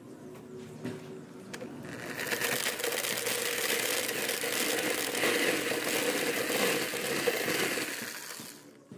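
Electric drill spinning a corn cob inside a pipe lined with screw points, stripping off the kernels, which rattle into a plastic bucket. The drill whirs quietly at first, turns loud about two seconds in as the cob is shelled, and cuts off near the end.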